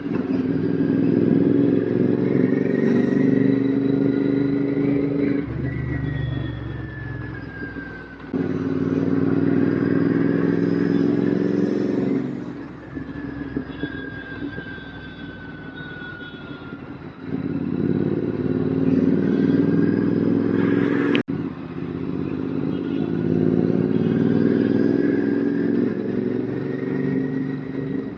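Royal Enfield GT650 parallel-twin engine through an aftermarket RRP exhaust, heard from the rider's seat while riding. There are four loud pulls on the throttle, each easing off into a quieter stretch, and the sound cuts out sharply for an instant about two-thirds of the way through.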